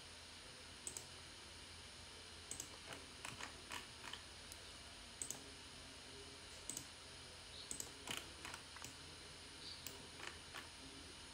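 Faint computer mouse clicks, about a dozen at irregular intervals and some in quick pairs, over a low steady background hum.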